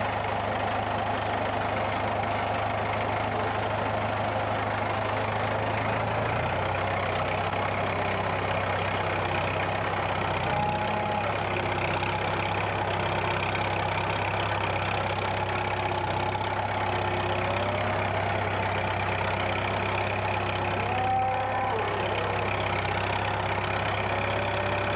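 Massey Ferguson tractor engine running steadily at a low speed, heard from the operator's seat as it drives the loader through shallow flood water. Its low note shifts slightly about six seconds in.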